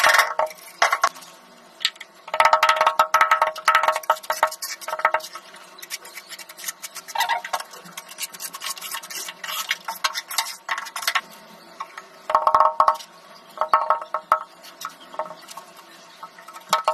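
Ceramic wall tiles and tiling tools scraping and clinking against each other, in irregular bursts of a second or two with a ringing, hard-surfaced rattle.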